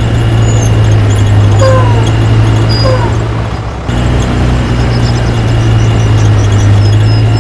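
A loud, steady low hum that breaks off briefly just under four seconds in, with birds chirping over it in short falling calls.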